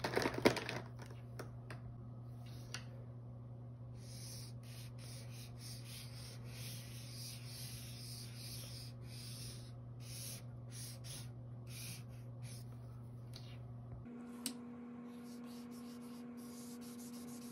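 Two felt-tip markers scratching across paper at once, in long strokes with short breaks between them. A sharp click about half a second in.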